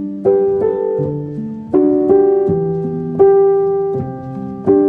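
Solo piano playing a slow intro of held notes and chords, new notes struck every half second or so, without singing.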